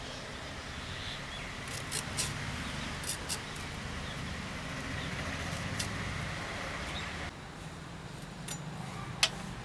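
Wood fire crackling now and then under a simmering pot, with scattered sharp clicks over steady outdoor background noise. About seven seconds in the sound turns quieter, and near the end there is a single louder sharp click.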